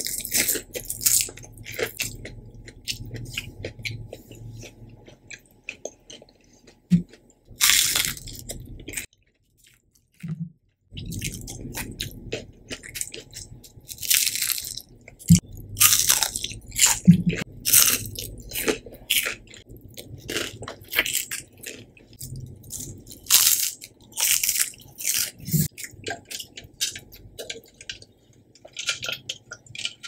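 Close-miked biting and chewing of crispy breaded fried shrimp and potato chips: many sharp, crisp crunches with softer chewing between them, pausing briefly about a third of the way through.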